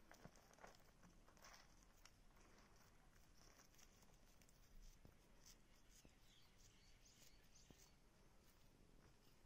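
Near silence: faint outdoor background with a few soft, scattered scratches and ticks.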